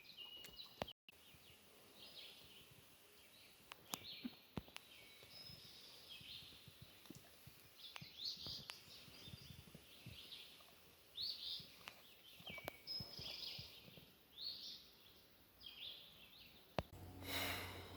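Faint birdsong outdoors: several short calls repeated on and off, with a few soft clicks.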